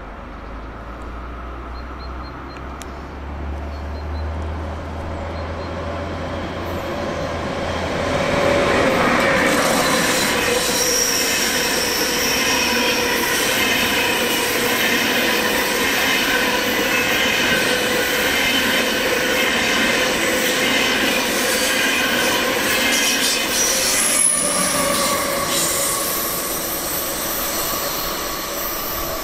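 ICE high-speed train passing on curved track. The rumble of the wheels builds to its loudest about eight seconds in, holds, and eases off near the end, with steady high tones from wheel squeal on the curve.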